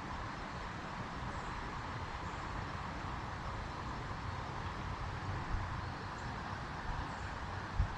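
Creek water running steadily: a continuous, even rush.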